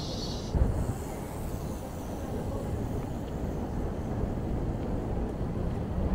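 Steady rumble of street traffic heard from a moving bicycle, with a brief thump about half a second in.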